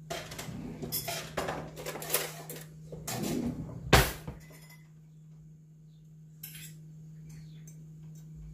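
Cutlery and dishes clinking and clattering as people eat, with one sharp knock about four seconds in, then only an occasional small click. A steady low hum lies underneath.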